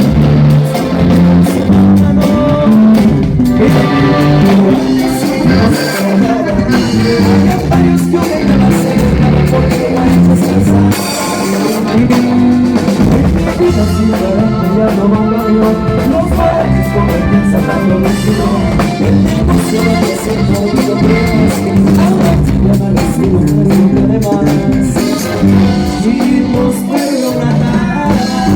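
Instrumental stretch of a Spanish-language song, with guitar and drums playing on steadily.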